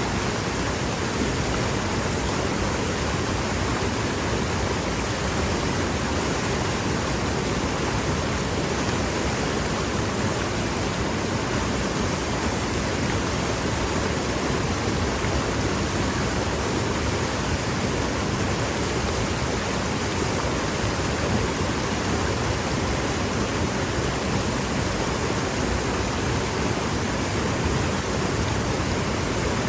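Mountain stream rushing over and around large boulders: a steady, even wash of water.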